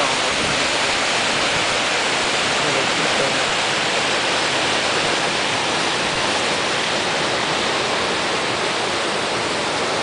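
Mountain river rapids: white water rushing steadily over boulders and small cascades.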